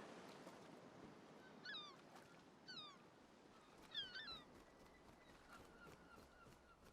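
Faint bird calls: four short, downward-sliding chirps, starting about two seconds in and roughly a second apart, the last two close together. Beneath them is a soft ambient hiss with faint scattered clicks.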